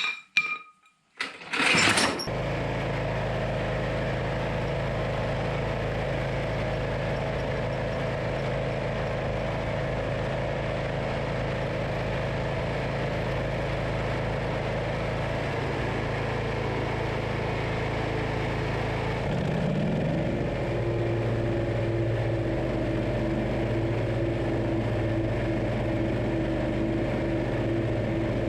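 A Briggs & Stratton engine on a Craftsman Z560 zero-turn riding mower: a few clicks, then it starts with a brief crank about two seconds in and runs steadily. About twenty seconds in its speed rises and holds higher.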